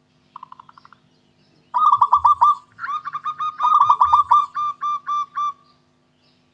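Zebra dove (local perkutut) cooing: a short, soft trill about half a second in, then a fast run of staccato coos from about two seconds in that slows into evenly spaced notes and stops shortly before the end.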